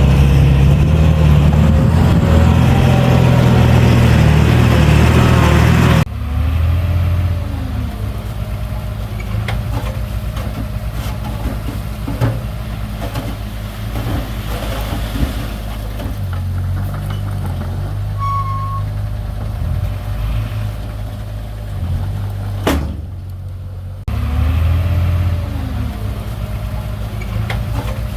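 Diesel engines of heavy earth-moving machinery running under load, in several clips joined by abrupt cuts. The first few seconds are loud and heavy, followed by a steadier, lower running with short squeals and a few sharp knocks.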